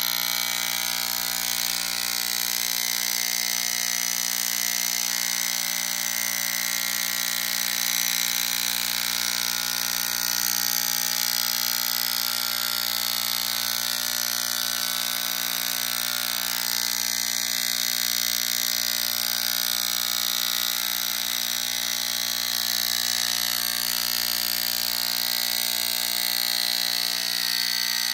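Handheld electric vibration massager (a Hit Massage) running with a steady motor buzz, its tip pressed against the skin of the face to give fine vibration.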